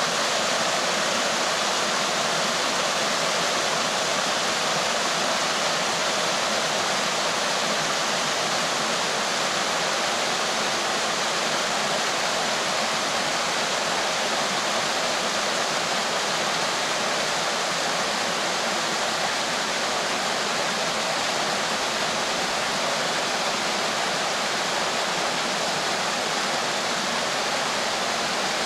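Small mountain stream cascading down a narrow waterfall over rocks: a steady, even rush of falling water.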